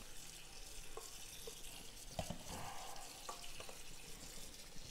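Cold tap water running in a steady hiss over cooked pasta in a strainer in the kitchen sink, rinsing it to stop the cooking, with a few light knocks as the pasta is turned by hand.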